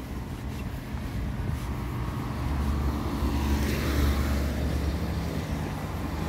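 A car passing by on the street, its engine and tyre noise swelling to a peak about four seconds in, then fading.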